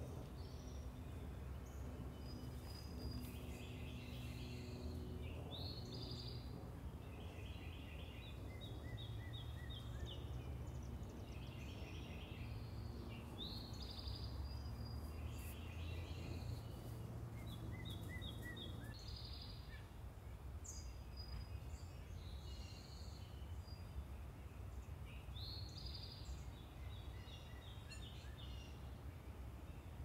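Garden songbirds singing, short trills and runs of notes repeating every few seconds, over a steady low rumble of distant town traffic.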